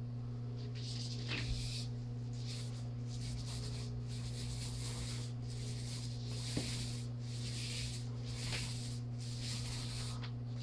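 A steady low hum runs throughout. Over it come soft, repeated swishing strokes of a paint roller and brush on a wall, with a few faint taps.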